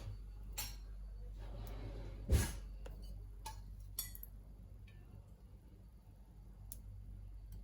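Kitchen utensils knocking and clinking a few times, the loudest knock about two seconds in, over a steady low hum.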